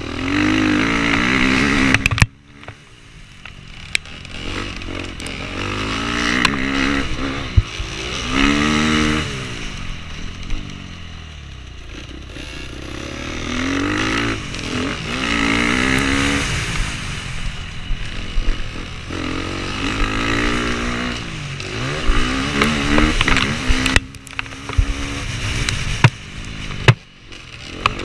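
Dirt bike engine heard from on board, revving up and falling back again and again as the rider works through the gears. The engine note drops off suddenly about two seconds in and twice near the end.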